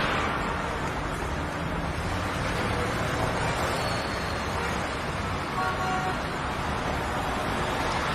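Steady noise of road vehicles, with a brief tone near six seconds in.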